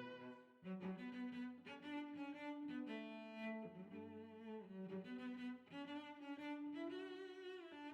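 Background music of bowed string instruments playing a slow melody of held notes.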